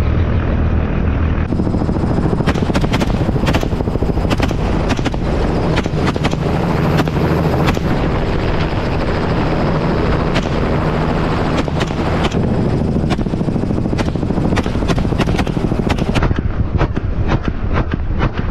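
Rifle shots fired in quick, irregular strings from a helicopter, over the steady drone of the helicopter's engine and rotor. The shooting starts a couple of seconds in and stops near the end.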